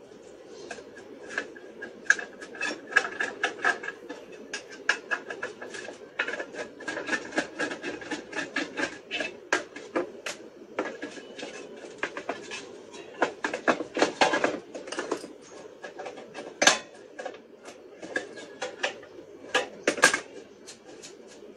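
Small metal electrical box and hand tools being handled: a run of irregular sharp clicks, taps and scrapes of metal on metal as the box is opened, a screwdriver is worked and pliers grip a metal bracket.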